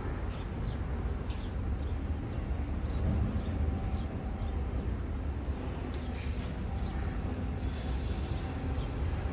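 Steady low engine rumble with a constant background of noise and a few faint scattered clicks.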